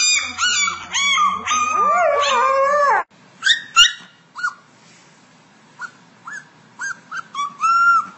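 A husky howls and 'talks' in a run of wavering, up-and-down cries for about three seconds. Then a small black puppy gives a string of short, high-pitched whimpers and yelps, the last one drawn out a little longer.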